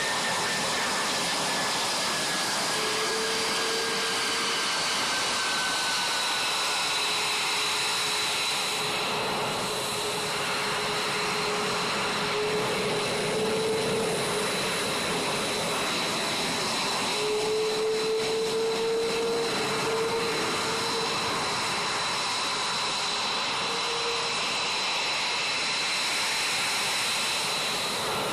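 F-22 Raptor jet engines running at taxi power: a steady jet rush with a high, steady whine, and a lower tone that comes and goes.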